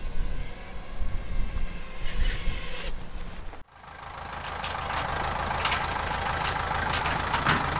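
Rushing wind and propeller noise from an FPV drone coming in to land. This cuts off sharply, followed by a farm tractor's diesel engine running steadily as it pulls a loaded trailer past, growing louder over a second or so.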